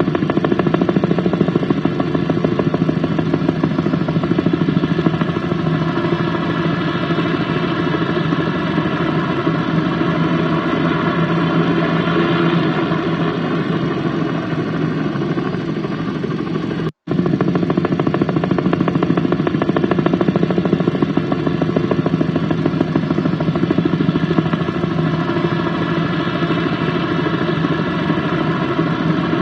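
Helicopter flying overhead: a steady engine drone with fast, even rotor pulsing. It cuts out for an instant about two-thirds of the way through, then carries on unchanged.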